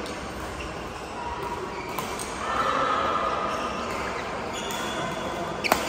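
Badminton rally on an indoor court: sharp racket strikes on the shuttlecock about two seconds in and again near the end, over the steady din of a busy sports hall. A drawn-out high squeak runs through the middle.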